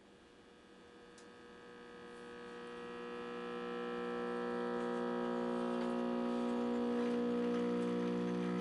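1948 Emerson tube radio humming as its tubes warm up: a steady, many-toned hum that grows louder over the first four seconds, then holds. The loud hum is typical of the failing filter capacitor the set needed replaced.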